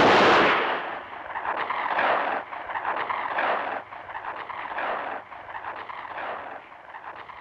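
A revolver shot right at the start, then a string of rushing, noisy swells about one or two a second that slowly fade.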